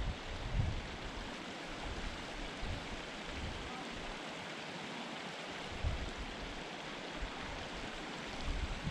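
Steady rushing noise, with short low rumbles of wind buffeting the microphone now and then.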